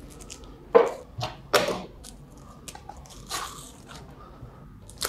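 Packaging rustling and crinkling as a plastic-wrapped laptop is slid out of its black protective sleeve. Two sharp crinkles come in the first two seconds, then softer rustling.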